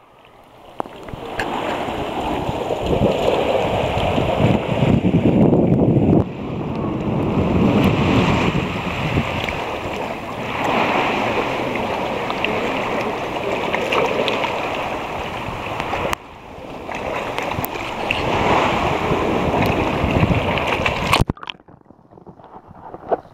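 Shallow lagoon water sloshing and splashing around a camera held at the surface, in a loud, uneven rush of water noise. Near the end it cuts to a much quieter, muffled sound as the camera goes underwater.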